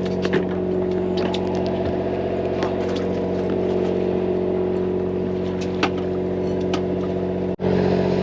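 Fishing boat's engine running steadily, with scattered small clicks and knocks over it. The sound drops out for an instant near the end.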